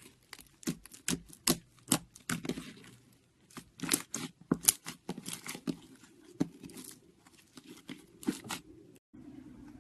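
Slime being squeezed and stretched by hand, making an irregular run of sharp crackling pops and clicks, several a second. The crackling stops abruptly near the end.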